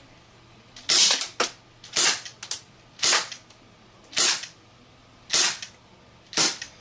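HFC HG132 gas-powered airsoft revolver firing six sharp shots, about one a second, each followed by a fainter tick. These are shots 43 to 48 on a single propane charge.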